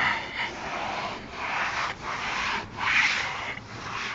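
A cloth towel being rubbed hard over a vehicle's running board, a rough scrubbing sound in about six back-and-forth strokes, roughly one or two a second.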